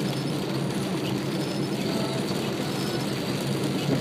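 Steady road noise inside a moving car's cabin, its engine and tyres running on a rain-wet road.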